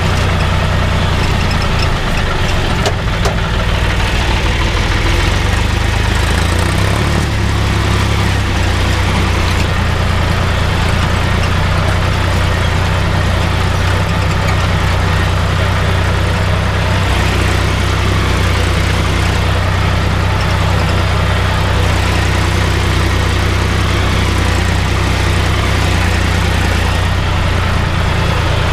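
Tractor diesel engine running steadily under load while pulling a stubble plough through the soil.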